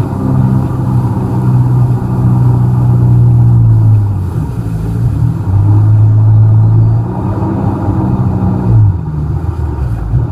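Personal watercraft (jet ski) engine running under way, its pitch dropping and rising a few times as the throttle changes.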